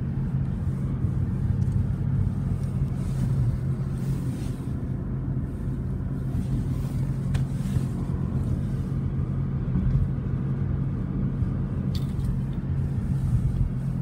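Steady low hum and rumble of a car's engine and tyres on the road, heard from inside the cabin while driving.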